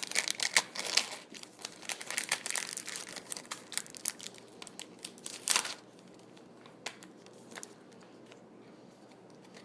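Foil booster-pack wrapper crinkling and tearing as it is opened by hand: dense crackling for about five and a half seconds, ending in one loud crinkle, then only a few faint rustles.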